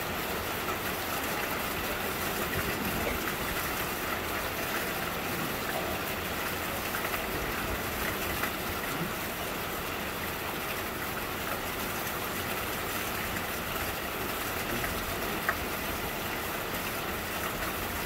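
Steady rain falling, an even hiss with scattered small drop ticks and one sharper tap near the end.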